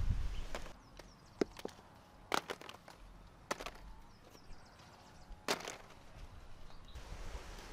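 A handful of sharp, separate chopping knocks, a second or more apart, with a quick pair about a second and a half in.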